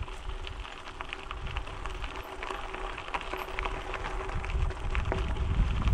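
Bicycle tyres rolling over a gravel road, with a dense, irregular crackle of small stones under the tyres and a low rumble of wind on the microphone.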